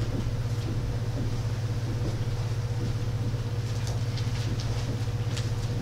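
Steady low hum, with faint scattered papery rustles of Bible pages being turned.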